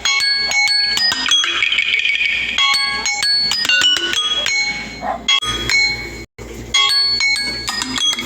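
Samsung Galaxy A12 alarm tone playing from the phone's speaker: a quick melodic run of short, bright chime-like notes. It cuts out for a moment about six seconds in, then starts again.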